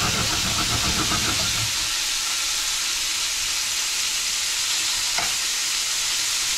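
Cobia pieces frying in a hot pan, a steady sizzle that starts suddenly.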